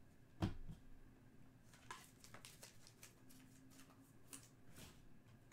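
Faint clicks and rustles of trading cards being handled, with one sharper tap about half a second in.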